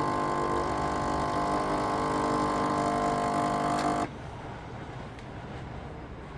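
Gran Gaggia espresso machine's pump humming steadily while it brews a shot, switched off by hand about four seconds in, when the cup is full.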